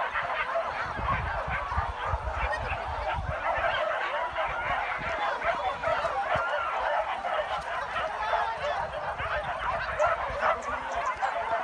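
A pack of hunting dogs barking and yelping together without a break, many voices overlapping.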